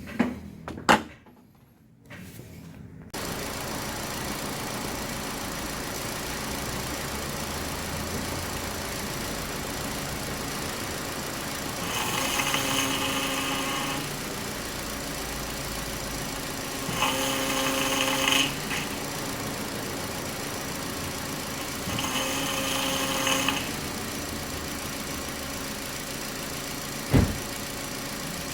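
Car engine starting and settling into a steady idle. Three times, for about two seconds each, a pitched whine rises over the idle: the power steering noise heard when the wheel is turned to its stop. A single sharp knock near the end.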